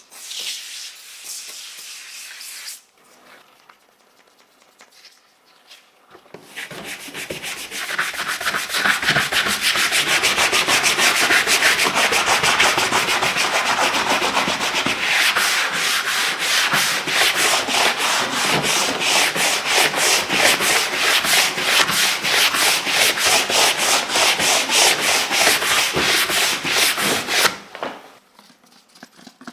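Plastic keyboard parts being scrubbed in rapid back-and-forth strokes, about four a second, for some twenty seconds. A brief hiss comes before it at the start.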